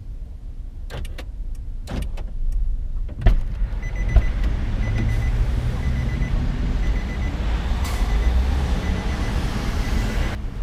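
Vehicle running, heard from inside: a steady low rumble with a few clicks in the first few seconds, growing louder and fuller from about three seconds in. A faint high beep repeats through the rest.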